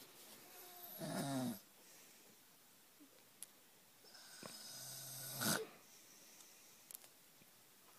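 Snoring: two long snores about four seconds apart, each building in loudness and then stopping suddenly.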